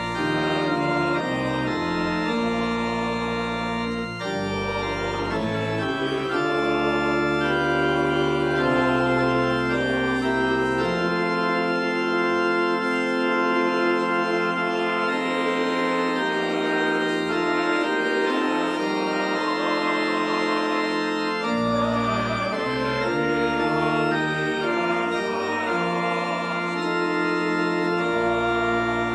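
Church organ playing held chords. The deep pedal bass drops out for about ten seconds in the middle and then returns.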